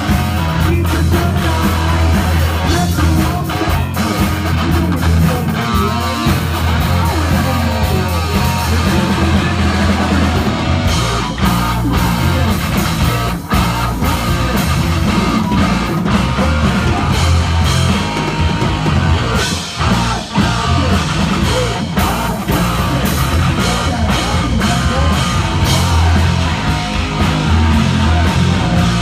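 Heavy metal band playing live and loud: distorted electric guitar, bass and drum kit.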